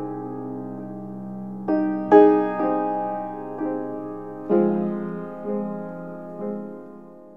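Slow background piano music: notes and chords struck about once a second, each left to ring and fade.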